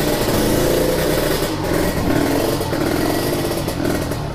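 Kawasaki Ninja 150 two-stroke single-cylinder engine running as the bike pulls away, the revs rising and falling several times with the throttle. The engine's piston is said to be worn loose.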